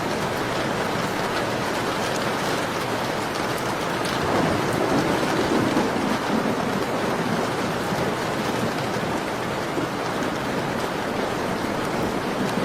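Steady, dense rain falling, with faint crackles of a wood fire through it. About four seconds in, a deeper swell rises under the rain and fades again by about seven seconds.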